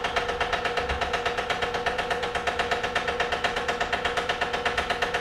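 Vacuum pump on a neon tube-processing manifold running with a quick, even pulsing over a steady hum, still drawing vacuum on the freshly bombarded tube as it cools.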